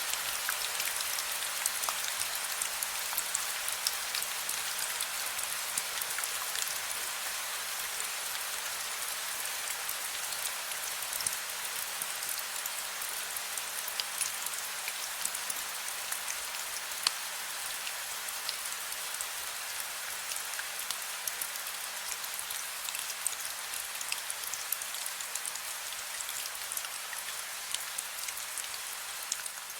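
Gentle rain falling: a steady hiss with many separate drops ticking through it.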